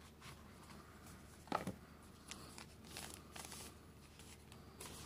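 Faint rustling and crinkling of a smartphone's paper and plastic packaging as it is handled and unwrapped, in short irregular bursts, with one brief louder sound about a second and a half in.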